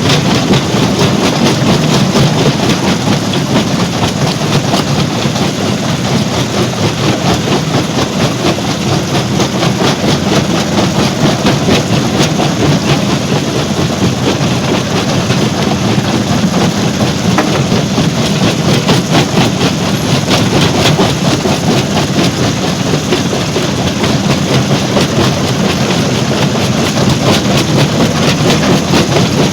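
Stone crusher plant running: a loud, steady mechanical din with a constant rapid rattle and clatter.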